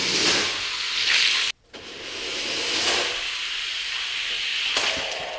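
A hissing rush of noise, cut off suddenly for a moment about one and a half seconds in, then swelling back and slowly easing off.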